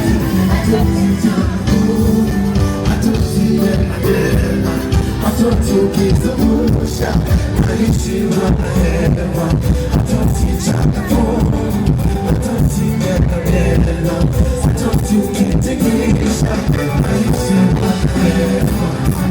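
Loud live music with a heavy bass beat and a singing voice, played over a stage sound system.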